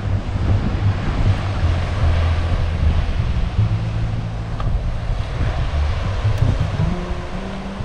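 Wind buffeting the microphone in heavy, uneven gusts of rumble, over the steady wash of surf breaking on a sandy beach.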